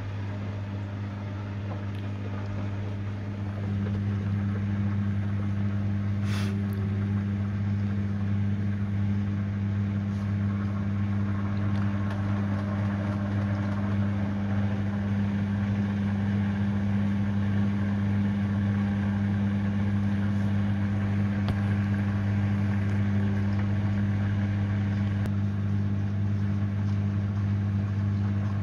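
Samsung front-loading washing machine running in its prewash spin stage: a steady low hum with fainter machine noise above it, stepping up in loudness about three and a half seconds in and then holding even.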